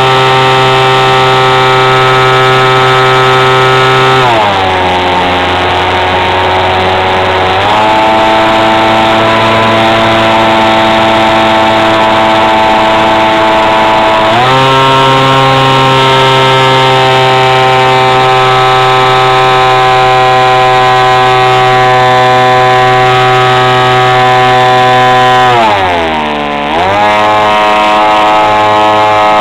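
Motor and propeller of a radio-controlled model airplane, heard up close from a camera on board: a loud, steady buzzing drone. Its pitch drops about four seconds in and climbs back a few seconds later. It steps up again around fourteen seconds, then dips sharply and recovers near the end.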